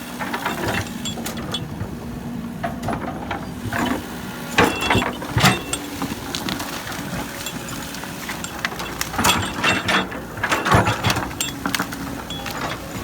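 Heavy construction machine's diesel engine running steadily, with bursts of metallic clanking and rattling twice, about five seconds in and again near ten seconds.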